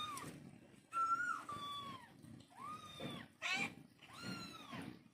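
Cats meowing repeatedly: about five high-pitched meows in a row, each falling in pitch at its end.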